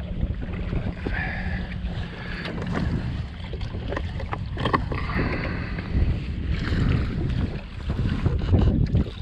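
Wind buffeting the microphone over water slapping and sloshing against a jet ski's hull, with scattered knocks and splashes.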